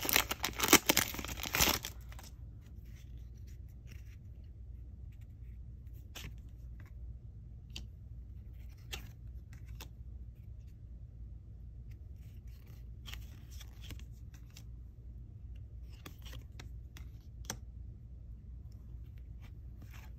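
Foil trading-card booster pack torn open, crinkling loudly for about the first two seconds. Then the cards are slid out and flipped through, with faint scattered clicks and rustles.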